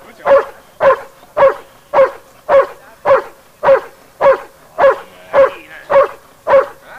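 Young Dobermann, about nine months old, barking steadily and rhythmically at a helper in a protection-training hide, a little under two barks a second, every bark about equally loud.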